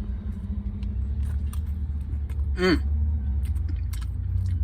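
A person chewing a mouthful of cheeseburger, with small wet mouth clicks and a brief hum of approval about two and a half seconds in. A steady low rumble runs underneath.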